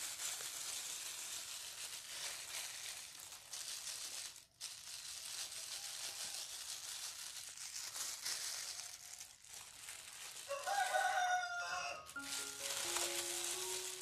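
Steady rustling hiss of thin plastic food gloves as soft cookie dough is rolled into balls by hand. A rooster crows once, about ten and a half seconds in, for about a second and a half.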